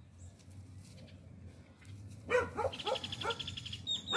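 A dog barking in a quick run of short barks, starting about two seconds in, with one more bark near the end.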